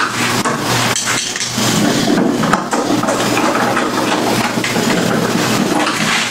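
Hands working on a flat-screen TV's plastic back cover, a steady run of clicks, knocks and clatter over a constant low electrical hum.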